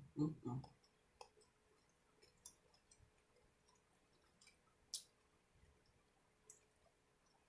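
Quiet eating at a meal: a few low sounds at the very start, then sparse faint clicks a second or so apart, with near silence between them.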